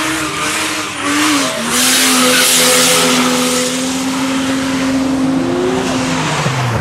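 Car engine held at high revs at a near-steady pitch during a burnout, with the rear tyres screeching and spinning in smoke. The revs drop away sharply near the end.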